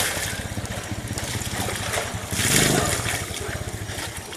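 A small engine running with a low, rapid, even throb that stops near the end. About two and a half seconds in, a loud rush of water splashing, as from a scoop of water poured out.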